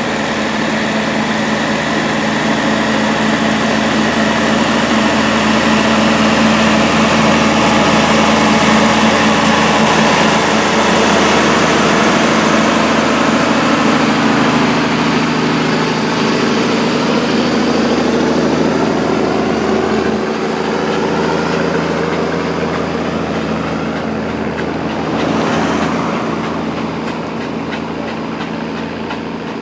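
A vintage military cargo truck's engine running as the truck drives up the lane and passes close by, its pitch sliding down as it goes past around the middle. A car then passes quickly a few seconds before the end.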